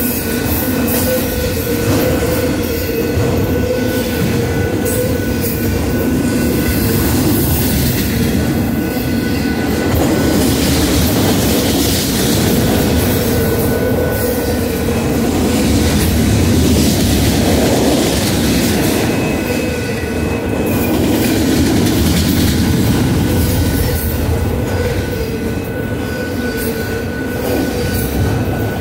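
Union Pacific freight train of autorack cars rolling past: a continuous rumble and clatter of steel wheels on the rails, with a thin steady high-pitched tone running through it.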